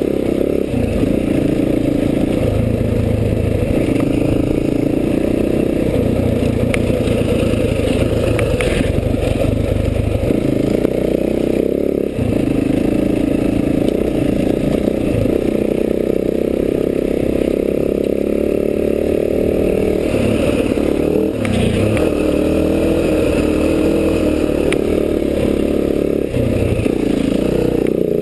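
Enduro dirt bike engine running under changing throttle while riding a rough dirt trail, its pitch climbing and dropping over and over as the rider works the throttle and gears.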